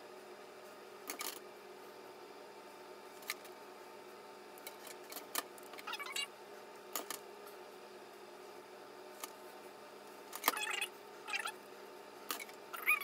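Scattered short scratches and clicks of a plastic comb being pulled through straightened hair and handled, more frequent near the end, over a faint steady hum.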